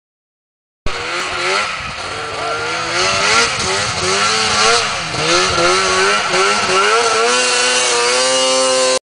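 Arctic Cat F6 snowmobile's two-stroke engine revved up and down over and over as the sled works through deep snow, settling into a steadier, higher pitch near the end. It starts about a second in and cuts off suddenly.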